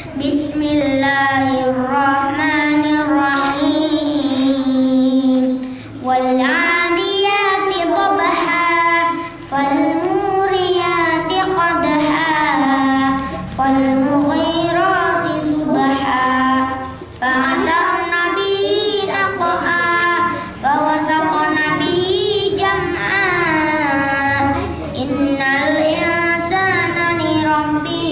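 A young boy reciting Quranic verses in the melodic tilawah style into a handheld microphone. He holds long notes and slides ornamentally between pitches, taking short breaths between phrases.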